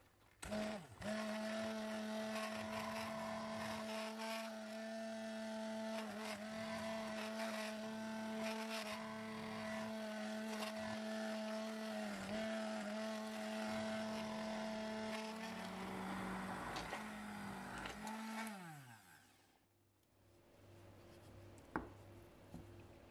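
Immersion stick blender running in a pot, puréeing cooked tangerines in syrup: a steady motor whine with the churn of the thick mixture. It switches off about 18 seconds in, the whine falling in pitch as it spins down. A single light knock comes near the end.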